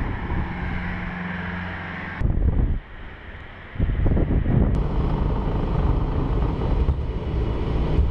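Wind buffeting the microphone over a steady low machinery hum on an airport ramp. The sound changes abruptly a few times, dropping quieter for about a second in the middle before the noise returns.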